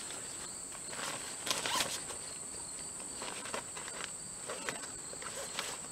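Nylon carry bag being handled and opened by hand: short soft rustles and scuffs, the busiest about a second and a half in, with a few lighter ones later. A steady high insect trill runs underneath.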